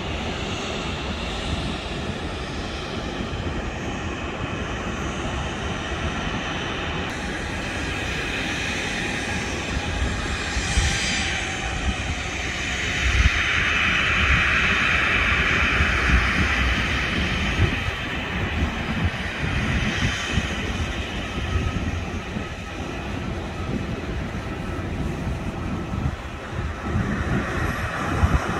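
Jet airliner engines at taxi power, a steady rumble and hiss. A higher engine whine swells about twelve seconds in and fades again some six seconds later.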